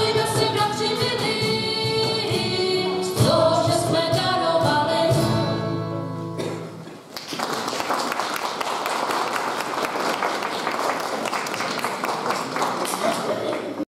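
A small group of mixed voices sings a Christmas carol to an acoustic guitar, ending on a held chord that dies away about six or seven seconds in. Audience applause follows and stops suddenly just before the end.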